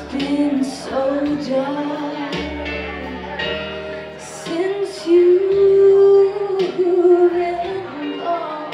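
A woman sings karaoke into a handheld microphone over a backing track with a steady bass line. A little past the middle she holds one long, loud note.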